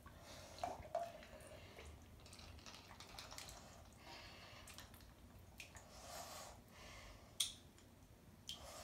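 Faint bathwater sounds of small drips and slight movement in a tub, with a few sharp little clicks of plastic toy pieces being handled, the loudest near the end.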